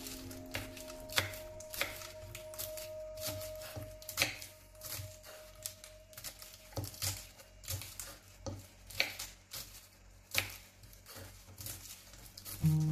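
Kitchen knife chopping lettuce on a wooden cutting board: a string of irregular crisp cuts, each ending in a light knock of the blade on the board.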